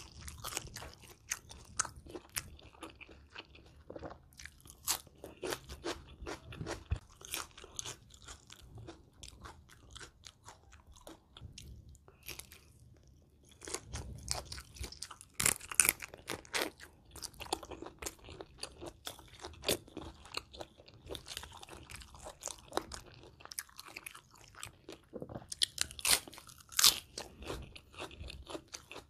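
Close-miked chewing and crunching of a spicy shrimp salad, crisp shrimp and raw vegetables bitten and chewed with wet mouth sounds. Louder bursts of crunching come about halfway through and again near the end.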